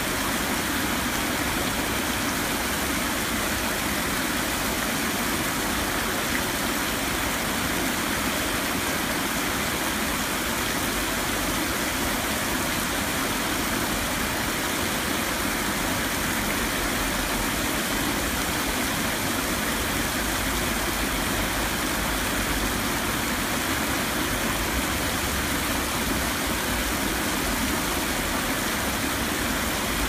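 Heavy rain falling onto flooded pavement: a steady, even hiss of drops splashing into standing water, with runoff flowing across the surface.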